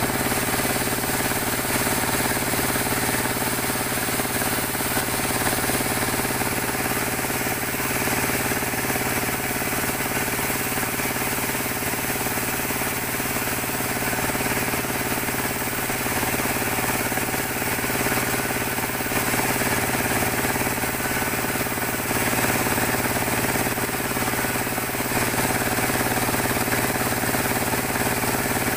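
Sawmill band saw running steadily as jabon logs are pushed through the blade: a constant machine hum with the noise of the cut over it.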